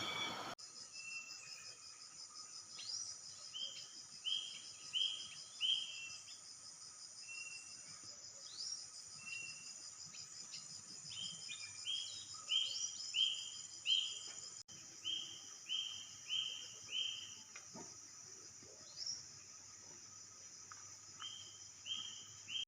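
Forest ambience: a steady high-pitched insect drone, with a bird calling over it in runs of three to five short repeated notes, plus a few single rising calls.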